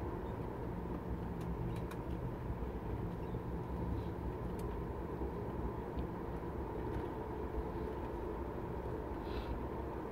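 Cabin noise of a Boeing 737 MAX 8 rolling onto the taxiway after landing, heard at a window seat over the wing: its CFM LEAP-1B engines idle with a steady whine over a low rumble. A few light clicks and knocks come through, about two seconds in, around four and a half seconds, and near the end.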